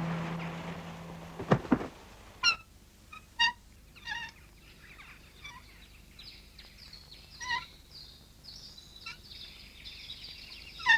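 Birds calling in an animated film's soundtrack: a few short, sharp calls spaced a second or so apart, then a thin, high twittering of quick chirps. A single knock sounds about a second and a half in, as music fades out at the start.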